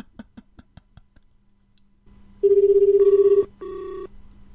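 Telephone ringback tone heard over the line as a call rings out unanswered: a steady pitched ring that starts about halfway in, sounding in two bursts, the second fainter. Before it, a quick run of faint clicks.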